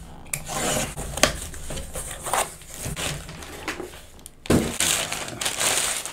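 A cardboard shipping box being unpacked by hand: a box cutter slicing packing tape, then cardboard and bubble wrap rustling and crinkling as the contents are pulled out. There is a sharp click about a second in and a louder burst of handling about four and a half seconds in.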